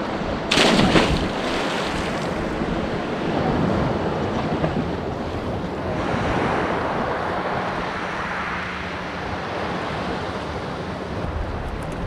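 A swimmer diving head-first into the sea makes one loud splash about half a second in. Steady noise of the sea and wind on the microphone follows.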